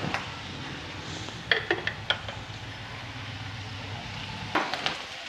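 Chopped onions cooking in a little oil in a pan, with a steady hiss and a low hum that stops near the end. A spoon clinks sharply against the pan a few times.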